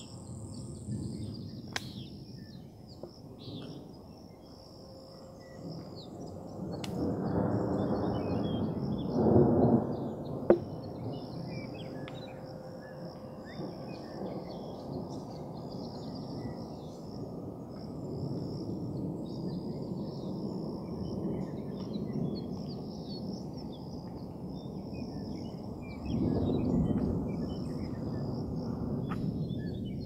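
Distant thunder rumbling low, swelling twice, once about a quarter of the way in and again near the end, with one sharp click about ten seconds in. Under it a steady high-pitched chorus of chirping night insects.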